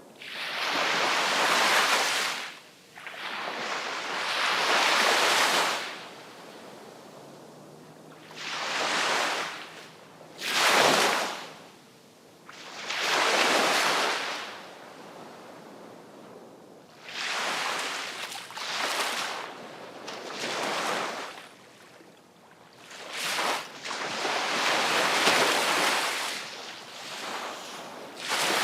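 Sea waves breaking and washing in one after another, each a rushing surge of surf that swells and falls away within a few seconds, with a softer wash between them.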